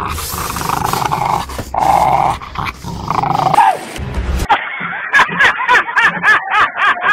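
A dog growling, then barking fast in a run of short, sharp barks, several a second, from about halfway through.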